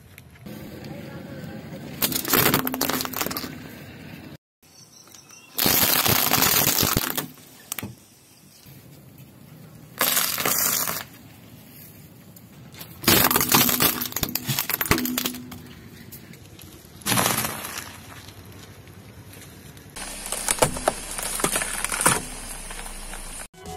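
A car tyre rolling over and crushing a series of objects in turn: wrapped candy bars, a bitter melon and, near the end, a pumpkin. There are about six separate loud bouts of crunching and cracking, each lasting one to two seconds.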